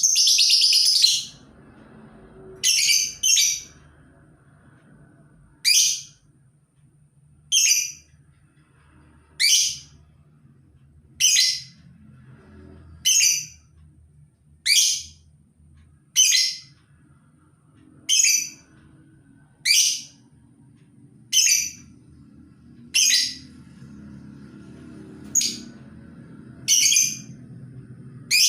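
Labet bird calling: a longer, high burst at the start, then short, high, downward-sweeping calls repeated evenly, about one every second and a half to two seconds. It is a lure call of the kind played to draw in other labet birds.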